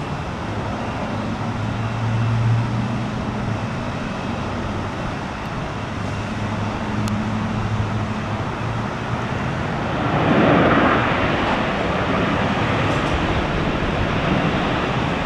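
Steady outdoor vehicle and wind noise: a rushing sound with a low engine hum under it for most of the first nine seconds, then a broader rushing swell starting about ten seconds in and holding to the end.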